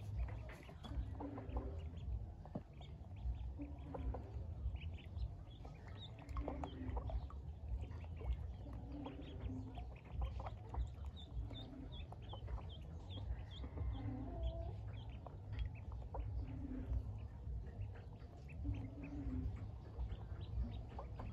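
Pekin ducklings peeping: many short, high cheeps overlapping. Underneath, a low call repeats about every second and a half.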